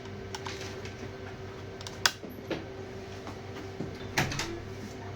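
A few sharp clicks and light knocks, the loudest about two seconds in, over a steady faint hum.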